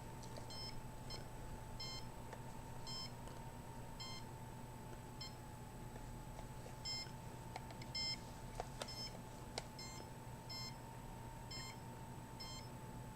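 Faint, short high electronic beeps from a handheld microwave (RF) meter's audio alert, one or two a second at an uneven pace, signalling the microwave readings it is picking up. A steady faint tone runs underneath.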